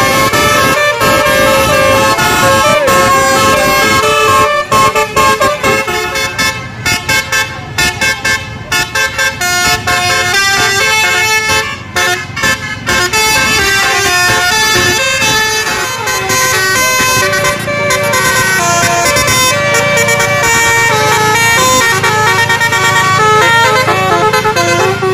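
Basuri telolet bus horns playing melodic tunes: multi-trumpet air horns sounding changing notes. There is a fast run of short stop-start notes in the middle, with longer held notes either side.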